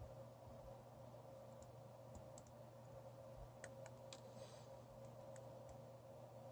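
Faint, scattered small clicks of a lock pick and tension wrench working the pins inside a Master Lock Pro Series 6125 padlock, a few irregular ticks over several seconds.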